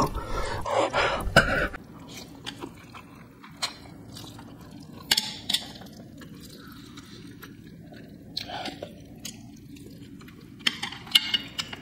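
Close-miked chewing of spicy instant noodles, with wet mouth smacks and clicks. Louder for the first two seconds, then softer chewing with scattered sharp clicks and a few louder smacks around the middle and near the end.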